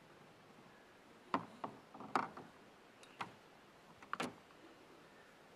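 Several sharp knocks and clicks spread over a few seconds, the loudest about two seconds in, as a tie-down strap is thrown over a kayak on an SUV's roof rack and its buckle and strap strike the hull and rack.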